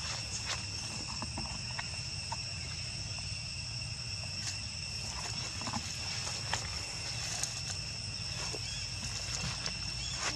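Steady insect chorus: a high, unbroken drone on two pitches, over a low rumble. Scattered faint crackles of dry leaves and twigs sound as monkeys move over the forest floor.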